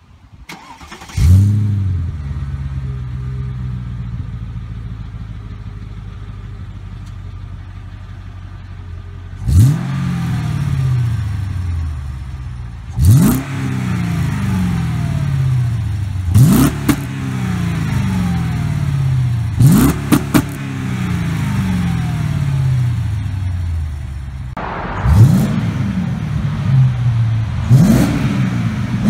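Mercedes E55 AMG 5.4-litre V8 with a straight-piped exhaust starting about a second in and settling into a steady idle. It is then blipped in several short revs, each falling back to idle.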